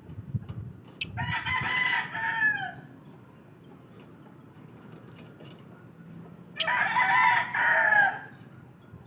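A rooster crows twice, a few seconds apart; each crow lasts about a second and a half and falls in pitch at the end.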